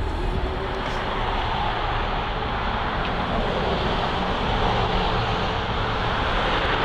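Road traffic noise with a car driving past.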